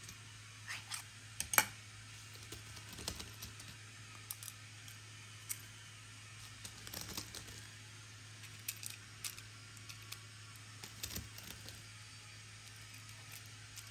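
Small clicks, taps and light rustling of objects being handled, the sharpest click about one and a half seconds in, over a steady low hum.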